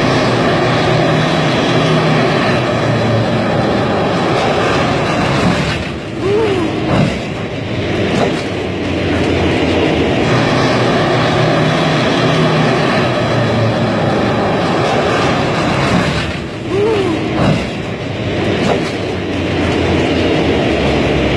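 Military tank's engine and tracks running loudly, with a brief squeal and a short knock about seven seconds in; the same stretch of sound plays again about ten seconds later.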